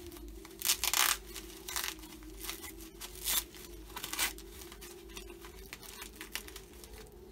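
Paper wrapping being torn and crinkled by hand as a small action figure is unwrapped, in several short rustling bursts, the loudest about a second in and more near three and four seconds.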